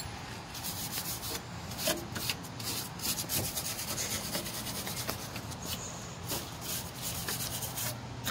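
A hand brush scrubbing corroded brake parts at a wheel hub, a run of quick, irregular scraping strokes, over a faint steady low hum.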